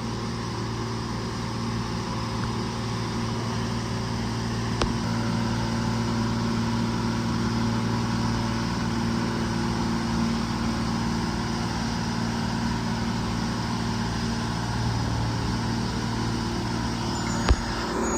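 125B excavator's diesel engine running steadily as the machine travels, with a sharp knock near the end.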